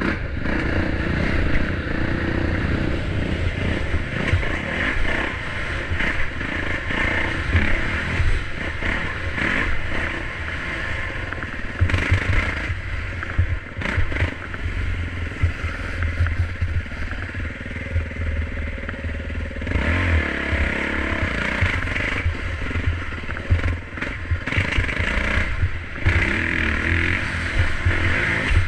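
Dirt bike engine running under load on sandy single-track, its note rising and falling as the throttle opens and closes, easing off around the middle before pulling hard again. A heavy low rumble runs under it.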